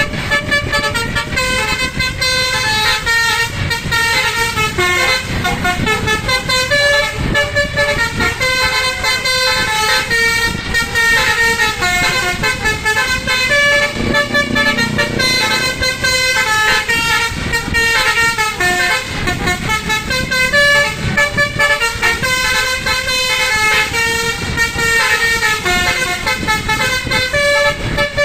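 Bus telolet basuri horn playing a continuous fast melody of changing horn notes, with a bus engine rumbling underneath.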